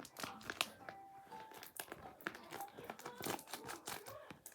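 Irregular crinkling and crackling from squishy toys being handled.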